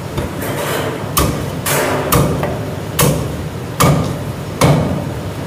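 A heavy Chinese cleaver chopping down through cooked chicken into a wooden chopping block, about six separate sharp chops a second or less apart, one cut at a time.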